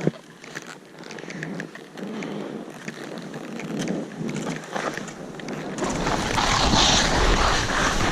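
Skis sliding and scraping over snow, with small knocks. From about six seconds in it gets louder and wind buffets the microphone with a low rumble.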